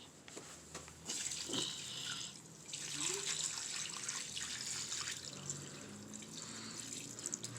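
Hissing rush like water running from a tap, in two spells: the first starts about a second in and lasts about a second and a half, the second starts about three seconds in and fades near the end.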